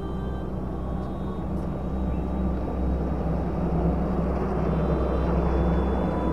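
Ambient background music: a low, steady drone with a few long-held higher tones, slowly growing louder.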